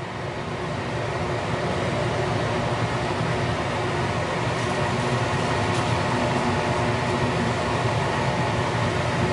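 Steady mechanical hum and rush, even in level throughout, with no distinct events.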